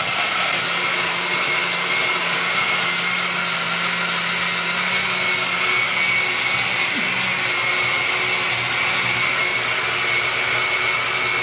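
Oster countertop blender running steadily at full speed, blending a banana and almond drink, with a constant high motor whine. It shuts off near the end.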